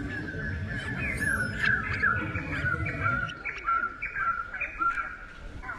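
Birds chirping in a steady run of short, high calls, several a second, over a low rumble that stops about three seconds in.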